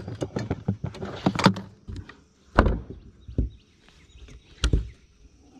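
Clattering knocks, then three separate heavy thumps on a bass boat's carpeted deck as the angler handles a freshly caught bass and shifts his feet.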